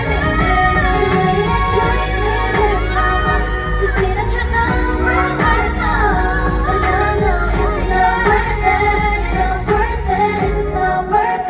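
Female voices singing a K-pop song over an amplified backing track with a heavy bass beat, heard loud through the hall's PA.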